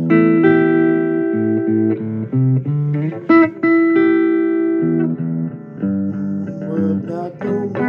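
Guitar playing a blues instrumental passage: long held notes at first, then shorter, quicker picked notes from about five seconds in.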